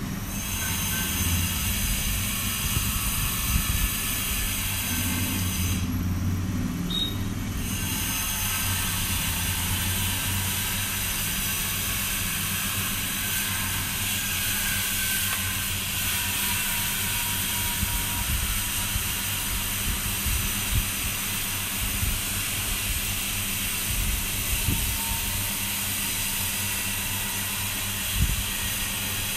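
Hot-air rework station blowing with a steady hiss and a faint whine while the replacement charging jack is soldered onto a phone's charging board. It cuts out for under two seconds about six seconds in, then runs on.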